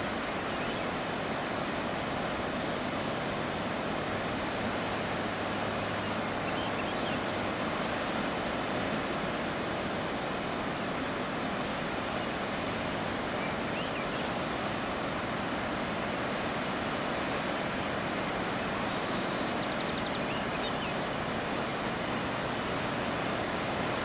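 Waterfall cascading steadily down a rock channel, a continuous full rushing roar of water. A bird chirps a few times, briefly, about three quarters of the way through.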